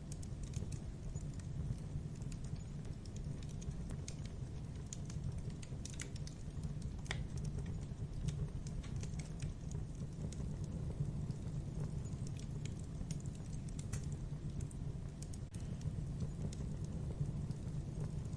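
Logs burning in a fireplace, crackling with irregular sharp pops and snaps over a steady low rumble.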